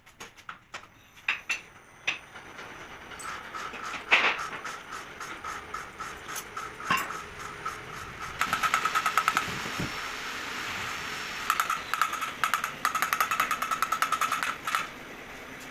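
Metal hand-tool work on a diesel engine: scattered clicks and knocks, one louder knock about four seconds in, then two bursts of very rapid, even clicking in the second half.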